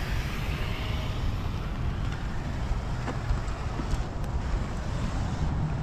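Wind buffeting the microphone: a steady low rumble with a faint hiss over it and a couple of faint ticks.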